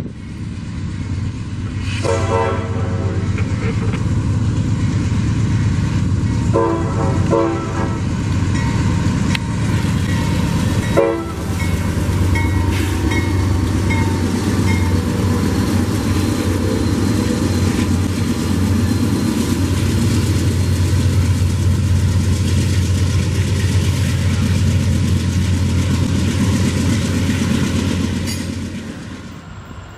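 Norfolk Southern freight train passing close by, led by a GE AC44C6M diesel locomotive. Its horn sounds two long blasts and then a short one. After that the locomotives' engines run loud and steady as they go by, with the clatter of the autorack cars, and the sound fades near the end.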